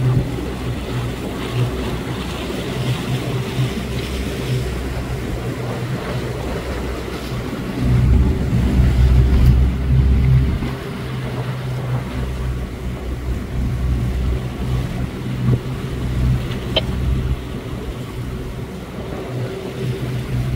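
Outboard motor of a coach boat running steadily, with wind and water noise; a stretch of louder low rumble from about eight to ten and a half seconds in.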